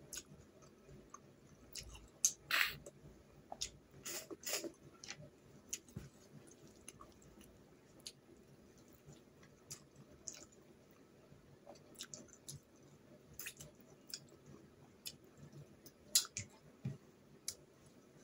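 Close-up eating sounds of a person chewing snail curry and rice, with wet mouth smacks and scattered small clicks as the snail shells are handled. A few louder, short sucking or smacking bursts stand out, the loudest about two and a half seconds in and again near the end.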